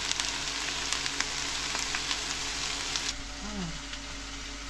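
Food frying in hot oil in a pan: a steady sizzle with scattered crackles that softens a little about three seconds in.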